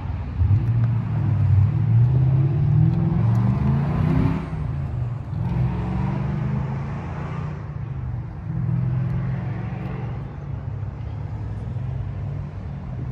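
A motor vehicle engine accelerating: its pitch climbs until about four seconds in, drops at a gear change, climbs again, then settles into a steady run.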